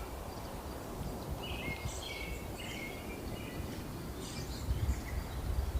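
Birds singing in two short bursts of chirps, about a second and a half in and again past four seconds, over wind buffeting the microphone with a low rumble that swells near the end.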